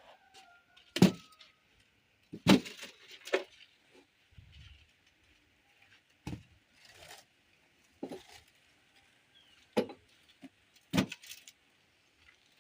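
Building-site work: about seven sharp, irregular knocks and clinks of hard material struck or set down, a second or more apart, with quiet between.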